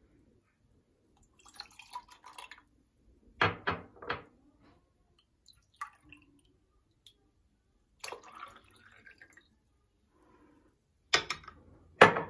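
Cold water being poured into a small porcelain Turkish coffee cup and a stainless steel cezve, in two short trickles, with clusters of sharp clinks as the cup and pot knock against each other and the countertop, about three seconds in and louder near the end.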